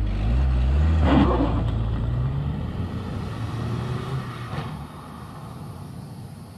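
Ford Focus 1.6 TDCi diesel car pulling away and driving off: the engine note rises as it accelerates, with a brief rush of noise about a second in, then the sound fades steadily as the car moves into the distance.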